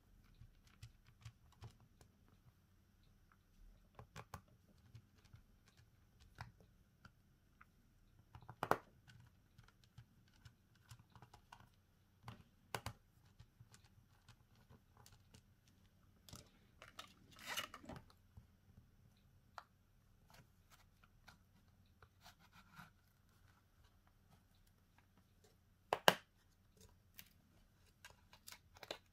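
Faint, scattered light clicks and taps of small tools working on a Cat S60 smartphone during battery replacement. There is a sharper knock about nine seconds in and another near the end, and a brief scraping, tearing sound a little past halfway.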